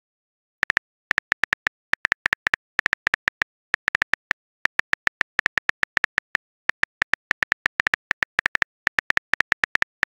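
Phone keyboard typing clicks: short, sharp taps in a quick, irregular run of several a second, with brief pauses between groups.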